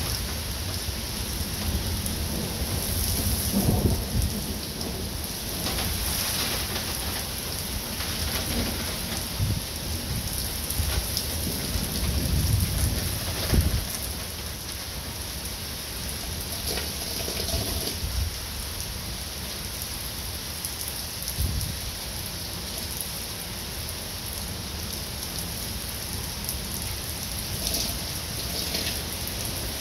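Steady rain falling on pavement, with rolling thunder rumbling repeatedly. The loudest rumbles come a few seconds in and again about twelve to fourteen seconds in.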